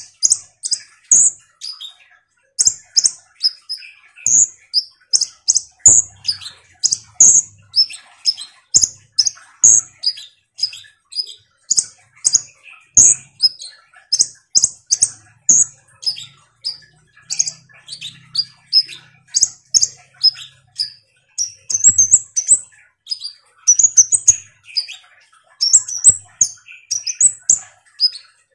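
Male Van Hasselt's (purple-throated) sunbird, the caged songbird known in Indonesia as kolibri ninja or konin, singing persistently. Its song is a continuous string of short, sharp, very high chirps, two or three a second.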